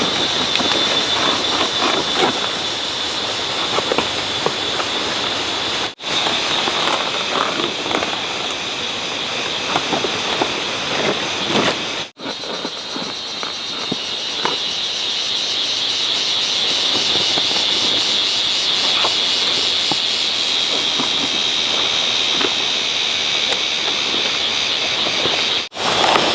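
Steady high-pitched droning of a cicada chorus, with scattered light knocks and rustles beneath it; it breaks off briefly three times.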